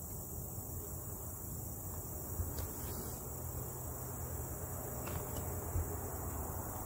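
Insects chirping in a steady high-pitched chorus, with a few faint clicks and scrapes from old caulk being picked off an RV roof by hand.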